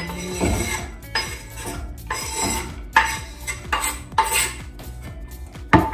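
Kitchen knife scraping chopped onion off a wooden cutting board into a frying pan, then the blade scraping and clicking against the pan as the onion is spread out.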